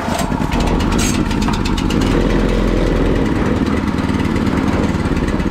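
Honda GX160 single-cylinder petrol engine on a concrete barrel mixer starting on the pull, with the choke on, and running steadily. The engine had sat and would not start before the repair; now it is running as it should.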